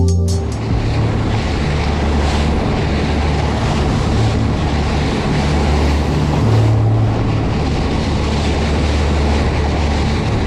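A charter boat under way: its engine running steadily, with water rushing past the hull and wind buffeting the microphone.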